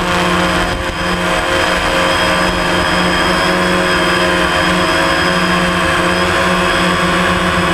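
DJI Phantom quadcopter's four brushless motors and propellers buzzing steadily in flight, heard close up from the GoPro mounted on the drone. There is a brief dip in level about a second in.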